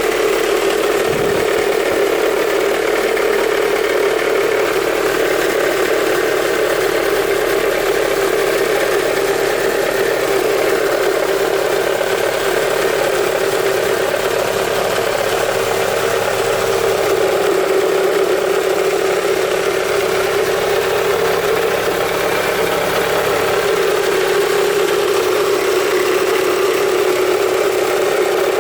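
Mazda Premacy's 1.8-litre FP-DE four-cylinder engine idling steadily while cold, making the abnormal noise that the owner is recording as a cold-engine fault.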